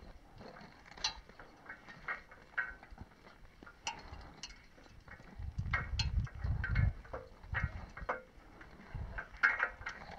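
Scattered sharp clicks and clinks of mountaineering gear, crampons and metal hardware on a fixed rope, on a steep snow slope. A low rumble on the microphone runs from about five to seven seconds in.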